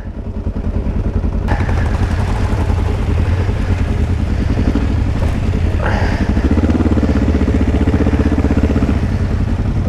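Kawasaki KLE 500 dual-sport motorcycle's parallel-twin engine running steadily under way on a wet dirt track, with a constant rushing noise over it. The engine note shifts about six seconds in.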